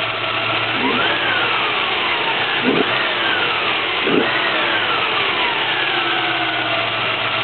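1994 Chevrolet Cavalier Z24's 3.1-litre V6 revved up and let back down about three times, with a whine like a power drill that climbs and falls with engine speed. The whine was traced to an old drive belt.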